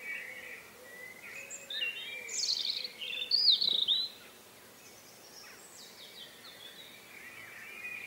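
Small songbirds chirping and calling in short, quick phrases, busiest and loudest about two to four seconds in, over quiet outdoor background.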